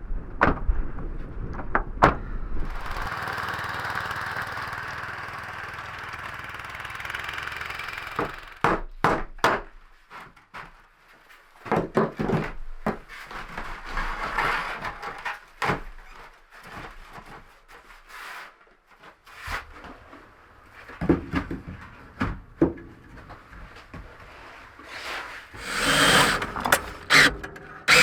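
A few seconds of steady hiss, then a string of irregular knocks and thumps, growing denser and louder near the end.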